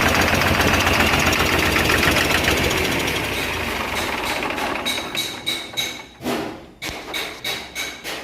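Nissan Quester CWA 280 truck's diesel engine turning over and running rough. After about three seconds it fades into a string of uneven chuffs as it dies. The engine has a camshaft sensor electrical fault, which the mechanics say makes it turn the wrong way.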